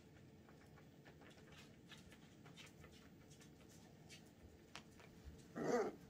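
Whippet puppies tussling on soft dog beds and blankets: faint rustling and scattered little scrabbles, then near the end a short, loud puppy vocalisation.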